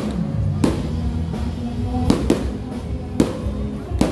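Aerial fireworks bursting overhead: about five sharp bangs at uneven intervals, two of them close together near the middle, with music playing underneath.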